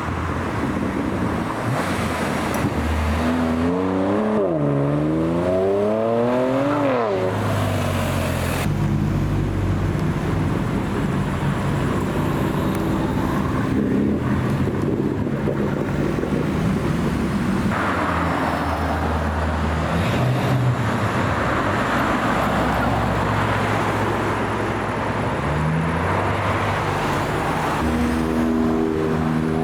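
Car engines driving past at low speed. One engine revs up and down about four to seven seconds in, and another engine revs up near the end.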